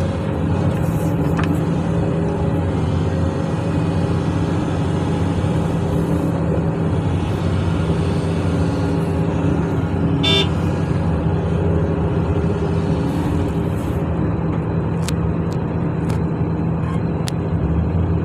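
Heavy diesel engines of an excavator and a loaded dump truck running steadily, with a short horn toot about ten seconds in.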